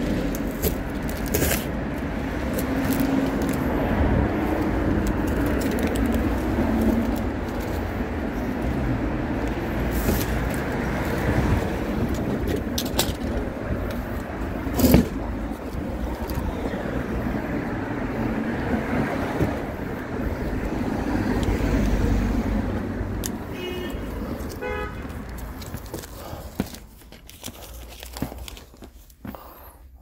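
Car on the road: a steady rumble of engine and road noise, with one sharp knock about halfway through. A short run of beeps comes near the end, after which the noise drops away.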